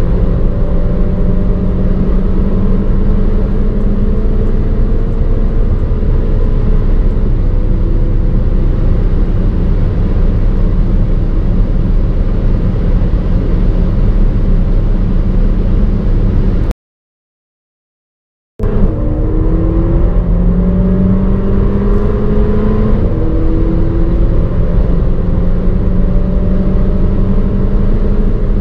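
Mercedes-AMG A45's turbocharged four-cylinder engine under full-throttle acceleration at high speed, heard from inside the car, its pitch climbing slowly along with road and wind noise. The sound cuts out for about two seconds past the middle, then picks up again still accelerating.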